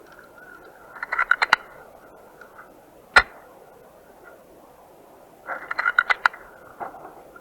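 Airsoft gunfire: a short string of quick sharp cracks about a second in, a single sharp shot a little past three seconds, and another rapid string of cracks in the second half.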